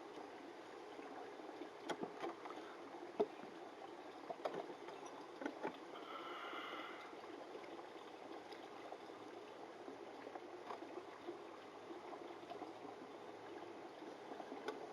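Faint rasping strokes of a 2000-grit diamond sharpening stone drawn along a Santoku knife's edge in a guided sharpening jig: the finishing passes. Several light clicks come in the first few seconds, and a brief ringing scrape comes about six seconds in.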